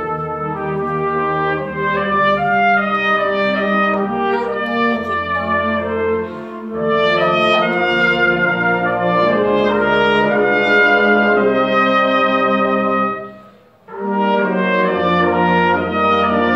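Cornet solo with a band accompanying, playing sustained melodic passages, recorded on a phone. There is a brief pause about three-quarters of the way through before the cornet and band come back in.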